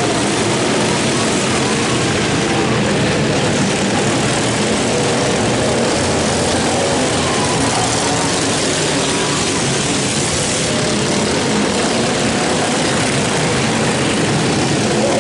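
Several racing lawn mowers' small engines running hard together, a loud steady buzzing drone.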